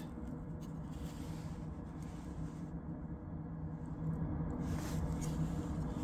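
Vevor diesel air heater running, its exhaust outlet giving a steady low hum that gets a little louder about four seconds in.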